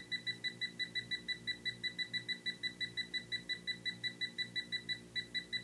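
A TLD.500 hand-held hydrogen leak detector beeping rapidly and evenly, about seven beeps a second with a brief break about five seconds in, as it picks up hydrogen from a calibrated leak of 4.8 grams per year. It is a stronger response than at the smaller leak settings.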